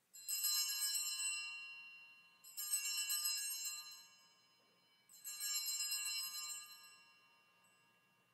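Altar bells (sanctus bells) rung three times, about two and a half seconds apart, marking the elevation of the chalice at the consecration. Each ring is a bright jingle that dies away over about two seconds.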